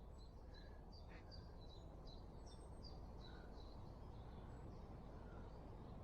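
Faint birdsong: a string of short, thin, high chirps from a small songbird, a couple each second, over a low, steady outdoor background.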